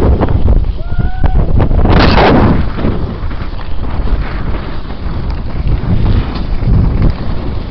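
Wind buffeting the microphone of a skier on the move, with the hiss and scrape of skis sliding on packed snow; a louder rush of scraping about two seconds in.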